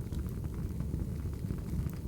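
Crackling wood fire: a steady low rumble of burning logs with many small, irregular pops and crackles.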